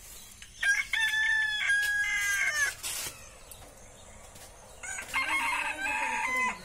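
A rooster's crow played from a YouTube video through a phone's speaker, heard twice: a long crow about a second in and a shorter one near the end.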